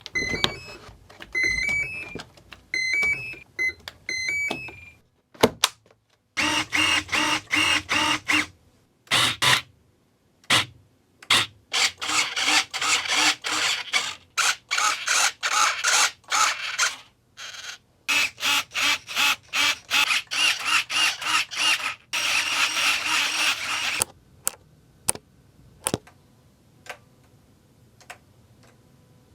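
An RC A-10 model's electronics sounding: short beeps stepping up in pitch in repeated groups. These are followed by many loud buzzing bursts that start and stop abruptly and hold a steady pitch, then a few scattered clicks near the end.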